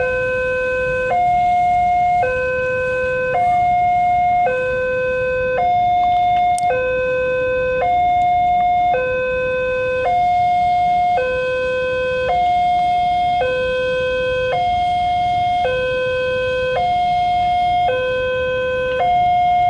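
Railway level-crossing warning siren sounding a two-tone hi-lo pattern: a low tone and a higher tone alternate, each held about a second, repeating evenly, over a low rumble.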